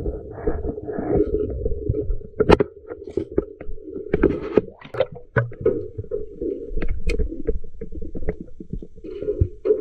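Muffled underwater rumble heard through a camera's waterproof housing, with many short sharp clicks and knocks from gear and the speared fish being handled.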